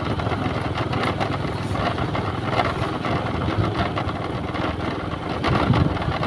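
Small motorcycle engine running steadily at low speed while riding along a road, a continuous low pulsing hum.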